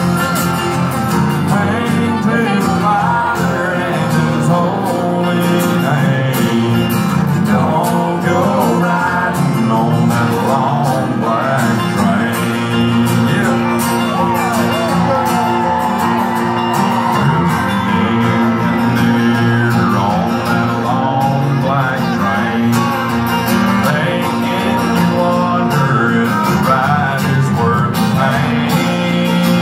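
Live country song: a man singing lead over guitars played by a small band.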